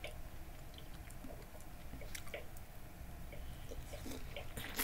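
Person biting into and chewing a peeled orange: quiet mouth sounds with scattered small clicks, and a louder click near the end.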